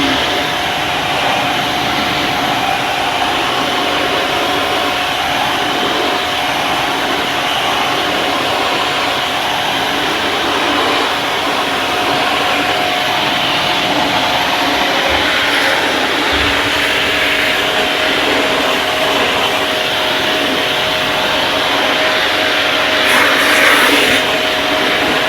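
A motor running steadily with a constant whine over a loud rushing noise, with a brief louder hiss near the end.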